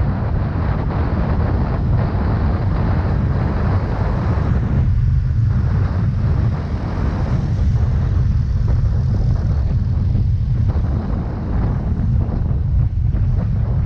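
Wind buffeting the microphone of a moving Yamaha Mio Gravis scooter, a steady heavy low rumble with road and engine noise beneath it.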